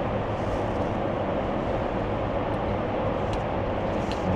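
Steady cabin noise of a Boeing 747-8 in flight: an even rush of airflow and engine noise, with a couple of faint clicks near the end.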